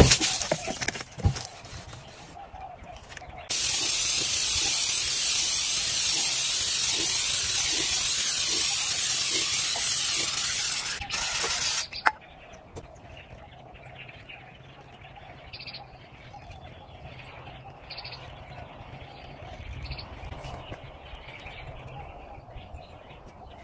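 Aerosol spray can of paint remover hissing steadily for about eight seconds as it sprays a car door, then cutting off abruptly. Afterwards birds chirp faintly.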